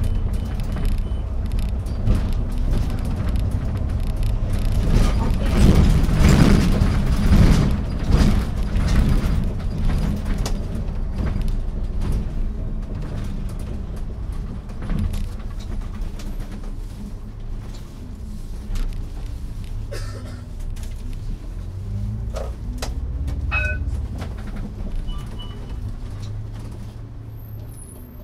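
Iveco Urbanway 12 GNV city bus heard from inside the cabin: its natural-gas engine and tyres running on the road. The noise is loudest as it gets under way early on, then eases off. In the second half the engine note rises and falls a few times, with a few light clicks and rattles.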